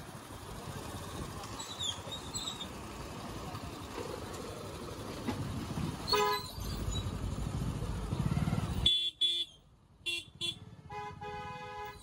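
Rumble and wind noise from riding a motorbike slowly through a busy street, with a vehicle horn sounding briefly about six seconds in. About nine seconds in the rumble cuts out suddenly, leaving three short horn toots.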